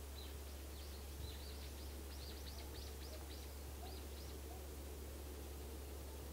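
A bird singing a quick run of about a dozen short, high chirps over the first four seconds, faint, over a steady low hum.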